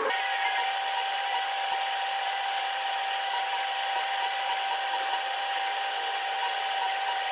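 TIG welding arc running steadily: an even hiss with a steady tone through it.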